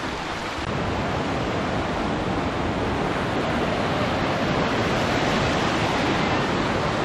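Whitewater mountain creek rushing steadily below a footbridge, a continuous even roar of water that grows a little louder about a second in.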